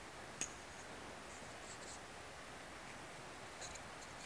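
Faint handling of an aluminium piston and its steel wrist pin in the hands: one small metallic click about half a second in, then light scraping and rubbing.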